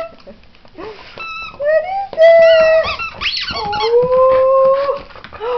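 A squeaky rubber ball toy squeaking repeatedly as a dog chews it: several drawn-out squeals of fairly steady pitch, starting about a second in, with a quick rising squeak in the middle.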